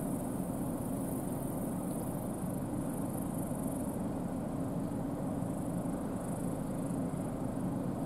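New Holland CR10.90 twin-rotor combine harvester running at work, harvesting barley: a steady drone of engine and threshing machinery.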